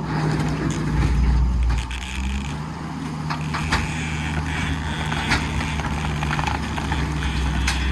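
Diesel engine of a front end loader running under load, its drone swelling about a second in, with sharp knocks and cracks scattered through the latter part.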